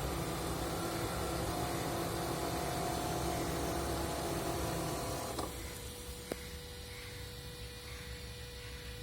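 Electric air-conditioning compressor of a 2015 Toyota Prius Alpha running with a steady whining hum and low rumble, a noise the owner finds abnormally loud, worse in hot weather. About five seconds in there is a click and the noise drops to a quieter, steady single-tone hum, with another faint click a second later.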